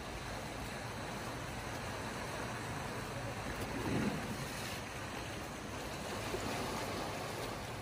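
Gentle sea surf washing against a rocky shore, a steady hiss with one louder surge about four seconds in.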